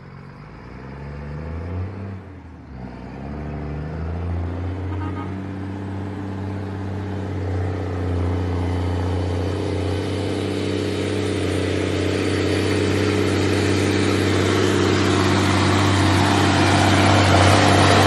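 Mack dump truck's diesel engine approaching up a dirt track and growing steadily louder. The engine revs up over the first few seconds, dips briefly about two seconds in, then pulls steadily under load.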